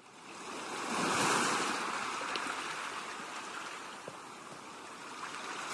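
Ocean surf: a wave swells up over the first second or so, then slowly washes back and fades.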